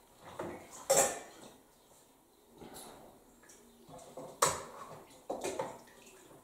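Scattered short rustles and soft knocks of cloth and hands as a cat wrapped in a blanket is held down and its front leg handled. The loudest comes about a second in, with a few more near the end.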